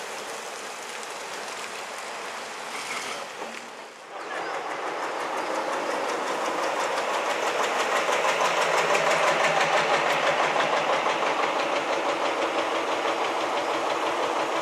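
Vintage bus diesel engine running with a fast, even clatter, growing louder over a few seconds as the bus draws near. Before that there is a steady hiss, which breaks off about four seconds in.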